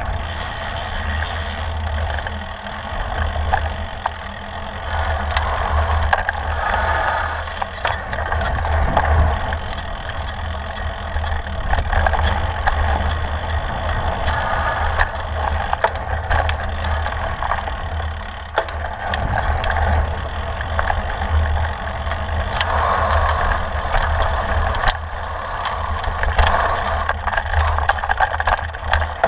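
Mountain bike rolling over rocky dirt singletrack, heard through a handlebar-mounted camera: knobby tyres crunching over gravel and stones, the bike rattling with scattered clicks from the bumps, and wind buffeting the microphone.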